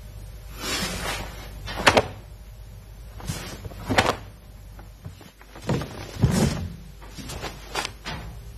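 A karate gi's sleeves and jacket swishing and snapping with fast kata blocks and strikes, giving a string of short sharp cracks, the loudest about two and four seconds in, with a few duller thuds between.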